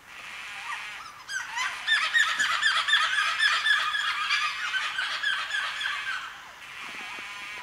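White-tailed black cockatoos calling. A dense run of rapid, overlapping calls starts about a second in and lasts about five seconds, with fainter calls before and after it.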